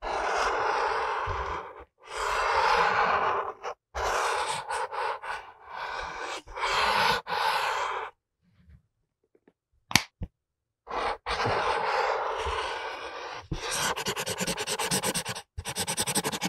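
Marker tips drawing on paper: scratchy strokes of a second or two each, with short pauses between them and one longer pause in the middle. Near the end they turn into rapid short back-and-forth strokes as an area is filled in with black.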